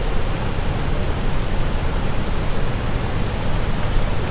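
Steady rushing roar of the Mekong rapids at Khone Phapheng falls, an even wash of water noise heavy in the low end.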